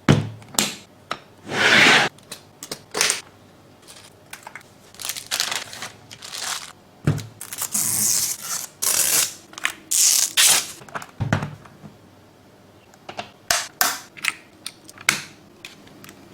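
Box and packaging being handled and opened: irregular knocks and clicks mixed with short scraping and rustling sounds.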